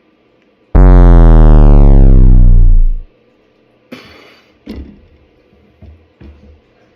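A loud, deep synthesizer hit lasting about two seconds, with its upper overtones sweeping downward. It is followed by a short rustle and a few light taps.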